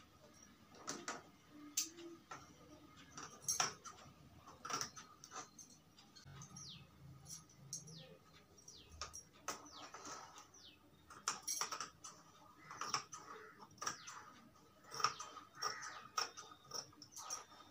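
Large tailor's scissors cutting cotton cloth: repeated sharp snips and clicks of the blades. Birds chirp in the background, with a run of quick falling chirps around the middle.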